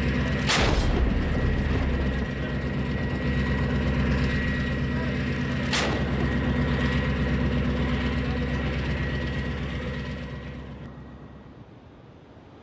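An engine running steadily, with two sharp booms about five seconds apart, the first trailing a low rumble: a Dutch PzH 2000 self-propelled howitzer firing rounds. The sound fades out near the end.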